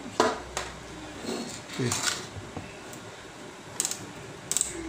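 A few sharp clicks and light knocks from handling an analog multimeter and its test leads, with short pauses between them.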